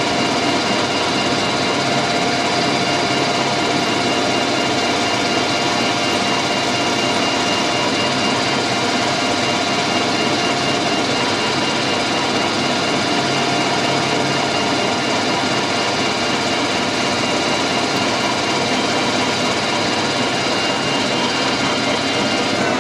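Metal lathe running steadily with its four-jaw chuck spinning, a carbide tool on the compound slide turning a centre point on a steel stub held in the chuck.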